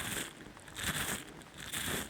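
ASMR ear picking on a microphone's artificial ear: crackly scratching and rubbing right against the ear, swelling and fading about once a second.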